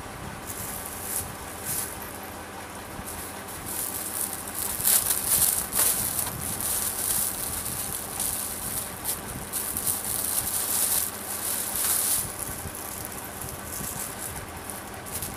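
Clothes being handled: irregular, crisp rustling of fabric, heaviest from about four seconds in until about twelve seconds in.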